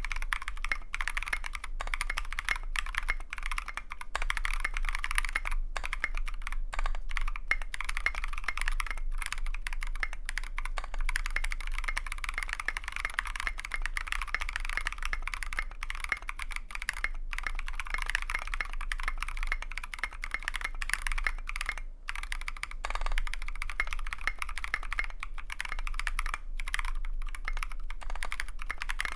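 Continuous fast typing on a custom mechanical keyboard: a KBDFans TFV2 with a brass plate, lubed NK Blueberry tactile switches and SA-profile PBT keycaps, sitting on a desk mat.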